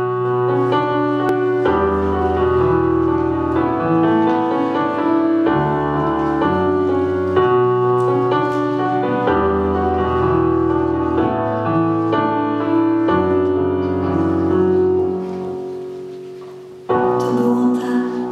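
Piano intro to a song: slow, sustained chords over bass notes that change every couple of seconds. The music fades away, then comes back in louder and fuller about a second before the end.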